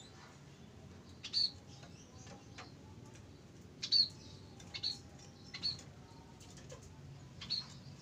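Caged munia (emprit) giving short, high single chirps, five of them spaced irregularly about a second apart.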